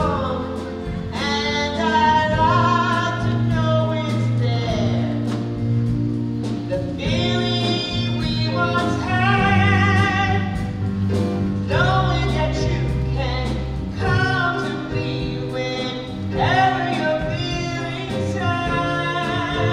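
A woman singing a slow song in long held phrases with a wavering vibrato, over sustained low accompanying chords.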